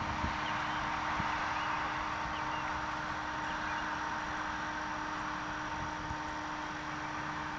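Steady outdoor background noise: an even hiss with a constant low hum under it.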